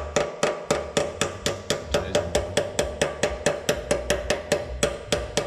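Rapid, evenly spaced hammer blows on metal, about five or six a second, each with a short metallic ring, as a part is tapped into place.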